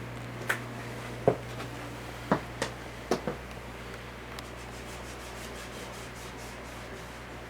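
Four-blade Codep industrial ceiling fan running with a steady low hum. About six sharp clicks and knocks come in the first three and a half seconds, followed by a faint rapid ticking.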